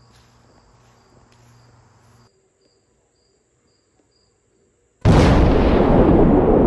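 Faint insects chirping in a steady repeating pattern, then near silence; about five seconds in a huge explosion goes off suddenly and loudly and keeps rumbling.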